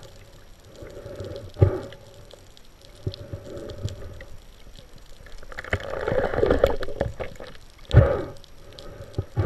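Muffled underwater noise picked up by a camera in its waterproof housing during a dive, with a dull knock about a second and a half in and a louder one near the end, and a swell of rushing water noise in the middle.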